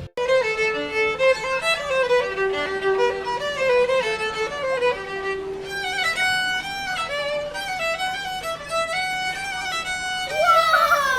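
Background music: a violin plays a quick melody of changing notes. Near the end a note slides steeply down in pitch.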